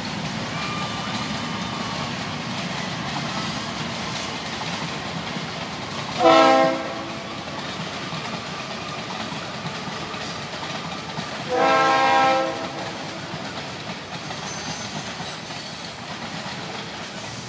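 Norfolk Southern freight train rolling past with a steady rumble from the cars on the rails. The locomotive's horn sounds twice, a short blast about six seconds in and a slightly longer one about twelve seconds in.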